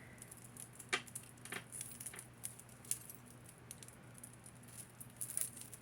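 Light clicks and small rattles of a beaded chain necklace being handled and picked at while it is untangled, scattered and irregular, with a short cluster near the end.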